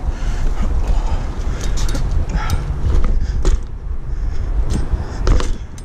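A BMX bike rolling slowly on a concrete sidewalk: a steady rumble from the tyres on the concrete, with wind on the microphone. A few sharp clicks and knocks come from the bike as it goes.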